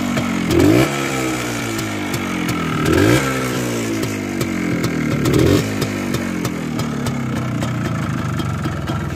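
Minsk 125's single-cylinder two-stroke engine running and blipped three times on the throttle, each rev rising sharply and sliding back down to idle, then idling steadily.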